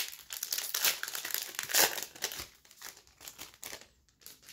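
Trading-card pack's foil wrapper crinkling as it is torn open and crumpled in the hands, a dense crackle that thins to a few light crinkles near the end.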